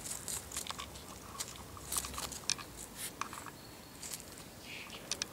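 Whippet puppies nosing among dry fallen leaves on grass: irregular crunching and crackling of the leaves.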